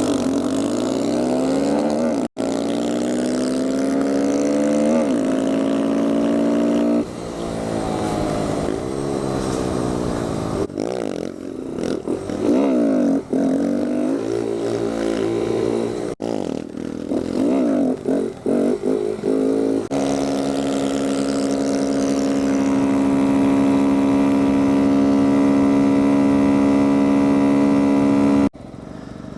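Kawasaki Z125 Pro's small single-cylinder engine accelerating hard through the gears, its pitch rising and then dropping back at each upshift, over and over. For the last several seconds it holds one steady pitch at cruising speed, and the sound cuts off abruptly a few times.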